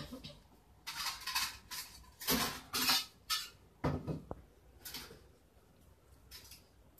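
Metal surgical instruments clinking and rattling, likely against a tray, in a quick series of clinks over a few seconds, one of them ringing briefly.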